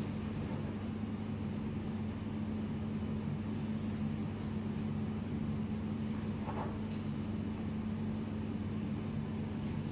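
Steady low hum of room machinery such as an air conditioner, with a couple of faint brief sounds about two-thirds of the way in.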